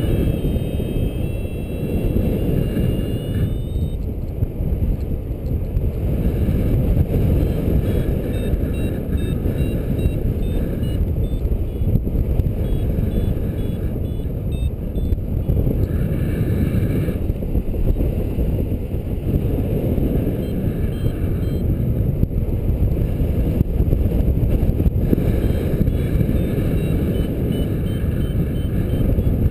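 Steady rumbling wind noise from airflow buffeting the microphone of a camera on a paraglider in flight. Faint short high-pitched beeps come and go above it.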